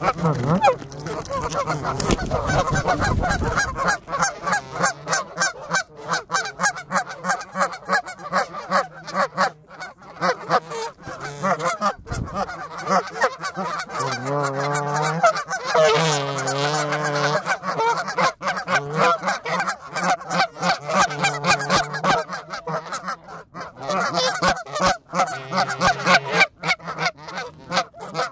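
Canada geese honking and calling close up, several voices overlapping. Many sharp clicks and taps run throughout.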